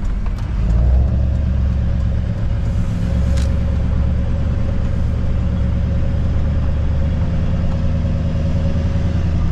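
Truck driving along, its engine and road noise heard from inside the cab as a steady low rumble, with a faint steady whine over it; it picks up a little about a second in.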